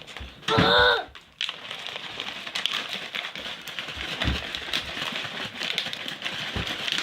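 A brief high-pitched child's vocal cry about half a second in, then a steady crackling, crinkling noise with many fine clicks.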